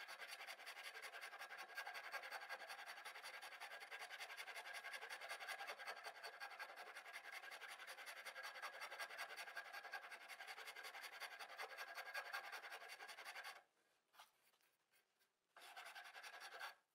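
Faint, fast scratching of a hand rasp working the end grain of a small wooden plug, rounding it over. It stops about three-quarters of the way through and comes back briefly near the end.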